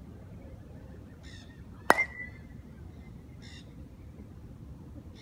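A baseball bat hits a ball once about two seconds in: a sharp crack followed by a short ringing ping that fades within a second.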